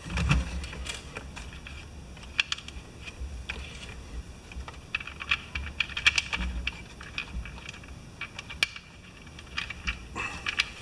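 Scattered small clicks and taps of tiny screws and a cover plate being handled and fitted on a toy fire truck's gearbox, with irregular clusters of light ticks.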